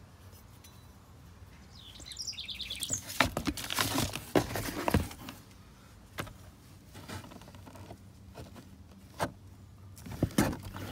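Metal pocket knives clicking and clattering as they are picked up and handled, with a bird chirping briefly about two seconds in.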